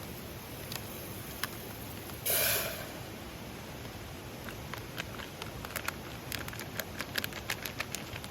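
Wood campfire crackling: irregular sharp pops, coming thicker in the second half, with a brief loud hiss about two seconds in, over a steady background rush.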